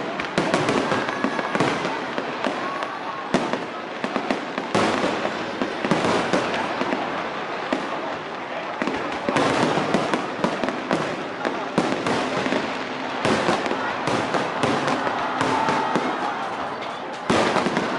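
Aerial fireworks going off in a dense, continuous barrage of bangs and crackles, with crowd voices faintly underneath.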